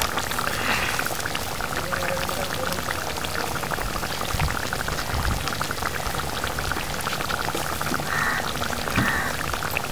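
Fish curry simmering in a steel pan: steady bubbling and fine popping from the liquid. A single sharp tap sounds right at the start.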